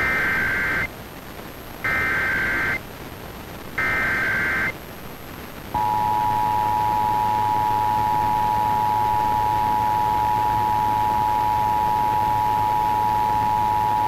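Emergency Alert System SAME header: three short screeching bursts of data tones, each just under a second long and about a second apart. About six seconds in, the steady two-tone EAS attention signal starts and holds.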